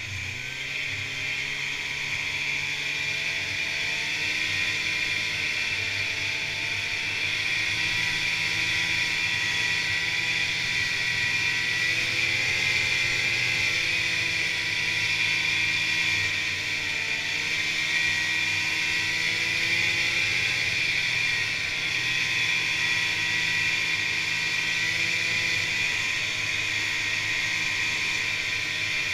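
Polaris Indy snowmobile's two-stroke engine running while riding along a trail, its pitch rising and falling gently with the throttle over a steady high hiss.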